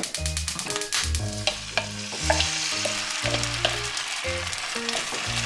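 Oatmeal chijimi batter frying in a non-stick pan over a gas flame: a sizzle that builds after about two seconds as the batter goes in, with scattered clicks of a metal spoon spreading it against the pan. Background music plays throughout.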